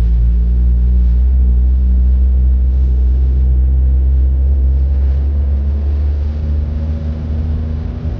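Car driving, heard from inside the cabin: a steady low drone from the engine and a road rumble, easing slightly near the end.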